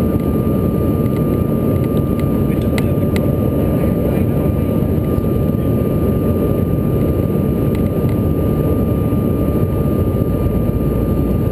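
Steady cabin noise inside a Bombardier CRJ700 regional jet in flight: a low, even roar of airflow and its rear-mounted turbofan engines, with a thin steady whine running through it.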